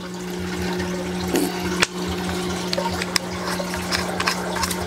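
Low steady pump hum with running, trickling water from a recirculating deep water culture hydroponic system, and a few light clicks as a small pump's hose fitting is handled.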